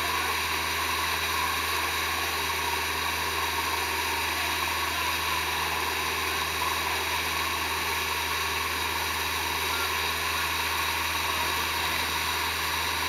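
Motorboat engine running steadily while towing, under a constant rushing hiss of water and wind.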